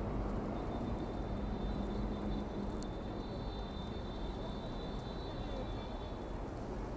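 Steady, even background noise of a street or busy public place, with no single clear source; a faint high tone runs through most of it and a single click comes about three seconds in.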